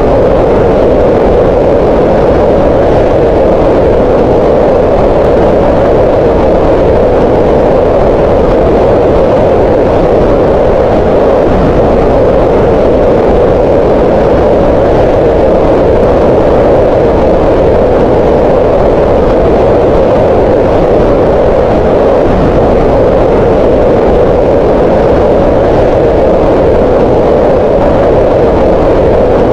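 Green noise: a loud, steady, unchanging hiss, strongest in the middle of the pitch range and thinner in the lows and highs.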